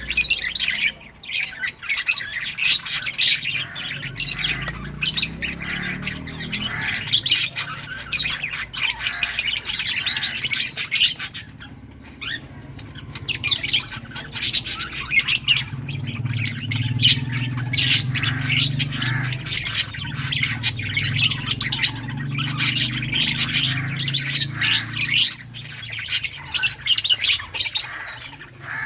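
A flock of lovebirds chattering, with rapid, shrill chirps and squawks overlapping almost without pause, briefly thinning out about halfway through. A faint low hum runs underneath in the middle stretch.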